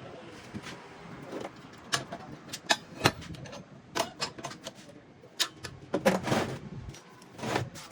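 A series of irregular sharp clicks and knocks, with short scraping or rustling noises about six seconds in and near the end.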